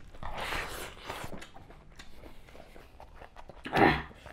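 Eating by hand: chewing, mouth smacks and small clicks of fingers on steel plates, with a noisy rush of breath in the first second and a short vocal grunt near the end.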